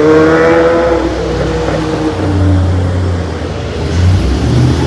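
Motor vehicle engine sound, its pitch climbing a little in the first second and then fading, over a steady low rumble.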